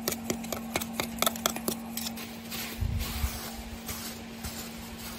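A small steel trowel scraping and tapping over packed moulding sand around an upturned wok, a quick run of short strokes for about two seconds. Then a softer rustle of sand with one dull thump about three seconds in.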